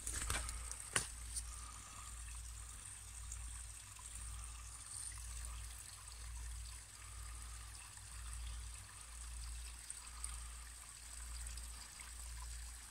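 Spring water trickling steadily from stonework into a small well pool, over a low rumble on the microphone that swells and fades about once a second. A couple of sharp clicks in the first second.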